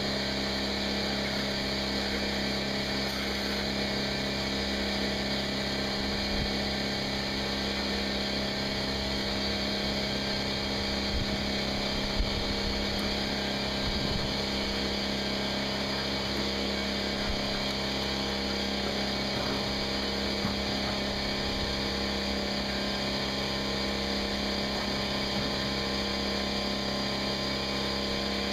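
A motor runs steadily at one constant pitch, with a few small knocks over it. It is a power tool or air compressor running during the cutting off of the cab's top.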